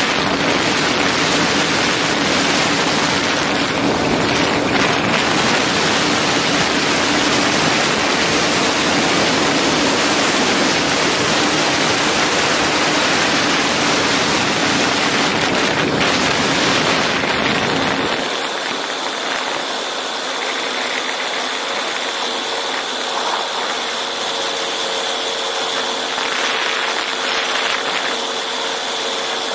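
Storch STOL aircraft's engine and propeller running steadily in flight, under heavy wind rush over a camera mounted outside on the wing strut. About 18 seconds in the sound changes suddenly: the low rumble drops away, leaving a thinner steady drone with a high whine.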